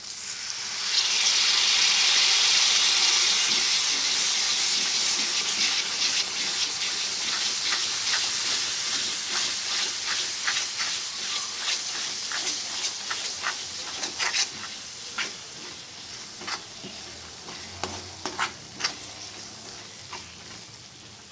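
Spice masala of onion, mustard paste and ground spices sizzling hard in hot oil in a pan after a little water is added. The sizzle surges about a second in and then slowly dies down as the water cooks off. A perforated metal spatula taps and scrapes against the pan as it is stirred.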